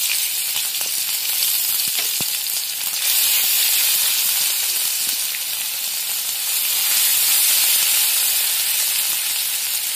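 Crushed garlic, cumin and mustard seeds sizzling in hot oil in a kadhai: a steady frying hiss of the tempering (phodni), with a few light clicks in the first two seconds.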